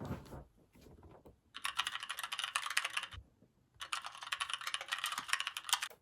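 Keyboard typing: two quick runs of rapid key clicks separated by a short pause, after a low thump at the very start.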